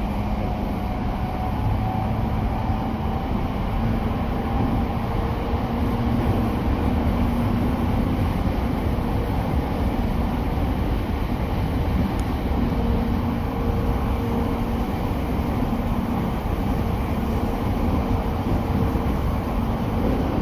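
Interior running noise of an E231 series 800 subseries electric commuter train in mid-run: a steady low rumble with faint humming tones that fade in and out.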